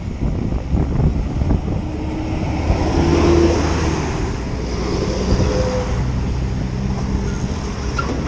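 Road traffic passing close by: vehicle engine and tyre noise swelling to a peak about three seconds in, over a steady low rumble.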